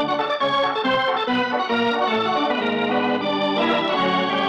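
Organ music cue starting abruptly, with held chords under a slow melody that steps from note to note, the bridge music that opens an act of an old-time radio drama.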